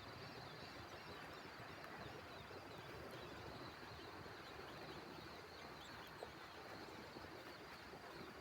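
Faint outdoor nature ambience: a steady background hiss with small birds chirping at a distance throughout.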